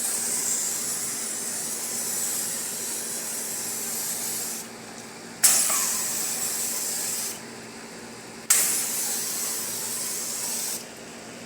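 Pressure washer spray gun firing three bursts of high-pressure water spray, each starting sharply as the trigger is pulled and lasting about two to four seconds. A steady machine hum continues underneath between the bursts.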